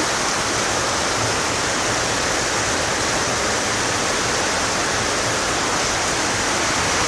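Heavy tropical downpour: a steady rushing hiss of rain and running water, with no breaks.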